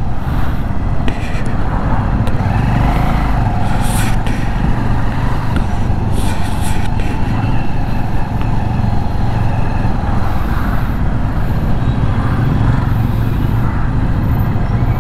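Single-cylinder engine of a Bajaj Avenger 220 motorcycle running steadily at road speed, mixed with wind rumble on the microphone and the sound of other traffic passing.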